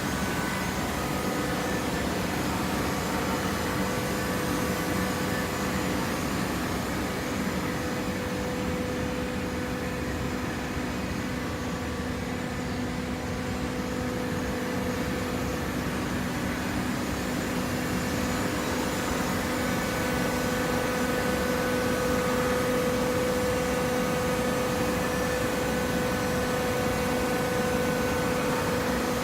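Coconut fiber baling machine running steadily: a continuous mechanical drone with a steady hum, growing slightly louder about two-thirds of the way through.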